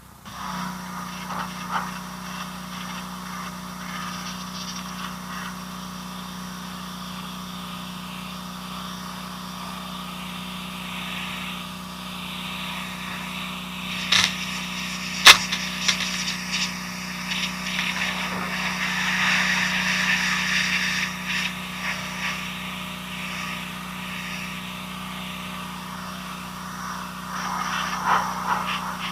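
A steady engine or motor hum, with two sharp knocks about halfway through.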